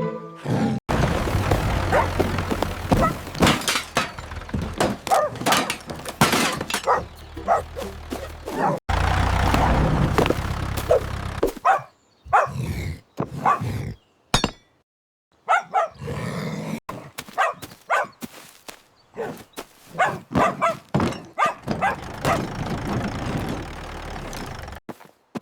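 A cartoon soundtrack of a dog barking again and again, mixed with crashing and thudding sound effects; the sound drops out briefly about twelve seconds in and again about fifteen seconds in.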